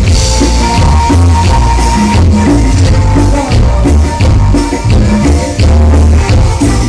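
Live band playing Latin dance music: heavy pulsing bass, drums and shaken percussion such as tambourine or maracas, with a long held high note starting about a second in.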